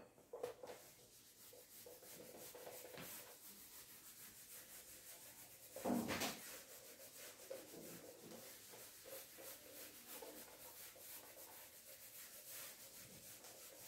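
A cloth wiping a whiteboard clean: a faint, steady run of rubbing strokes. There is a louder bump against the board about six seconds in.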